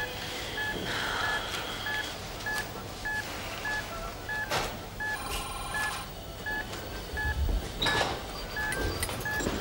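Operating-theatre heart monitor beeping steadily, about two short beeps a second, following the patient's heartbeat. About halfway through, a telephone rings briefly, with a few sharp clinks around it.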